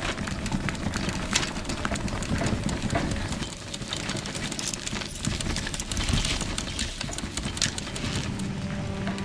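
Sound effect of a propeller aircraft's cabin in flight: a low engine rumble with dense, irregular rattling and clicking over it.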